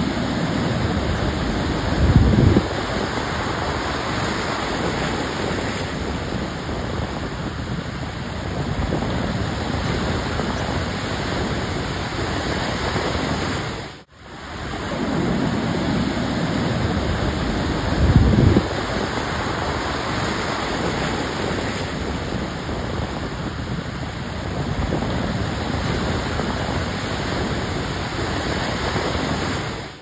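Heavy ocean surf breaking against a rock, a continuous rush of sea noise with wind buffeting the microphone. A louder low crash of a wave striking comes about two seconds in, and again about sixteen seconds later.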